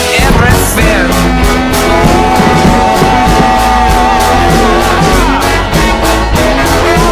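Rock music playing loudly, with a steady drum beat under long held melody notes that slide in pitch.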